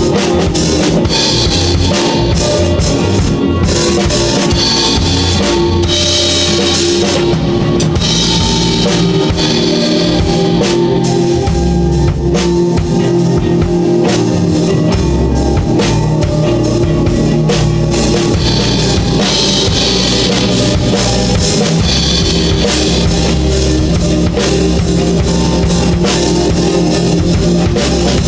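Instrumental band music from a jam-session demo: a drum kit with kick and snare keeping a steady beat under bass and guitar.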